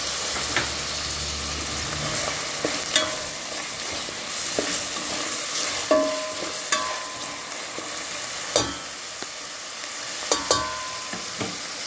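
Ground pork, shrimp and onions sizzling in oil in a stainless steel pot as they are stirred. A utensil knocks and scrapes against the pot about ten times, and a few knocks ring briefly off the metal.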